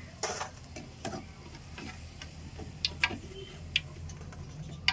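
Steel ladle clinking and scraping against a metal kadai and a steel plate as fried onion pakodi are lifted out of hot oil and tipped onto the plate: a handful of sharp, irregular clinks over a faint sizzle of the oil.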